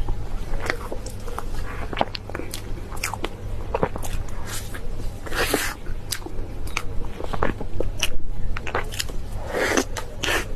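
A person eating seafood close to the microphone: irregular biting and chewing crunches and clicks, with two longer noisy bursts about five and nine and a half seconds in.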